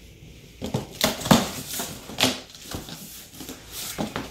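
Cardboard shipping box being opened: the flaps pulled back and corrugated cardboard packing inserts handled, giving a series of short, irregular rustles and scrapes.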